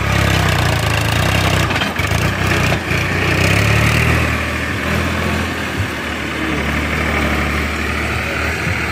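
Powertrac tractor's diesel engine running steadily as it pulls a trolley loaded with soil, with a short clatter of knocks about two seconds in and a brief rise in engine noise around three seconds in.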